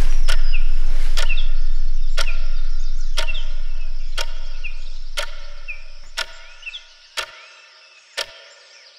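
Soundtrack sound design: a deep low rumble fading away over about seven seconds under a sharp, clock-like tick about once a second, with birds chirping faintly behind.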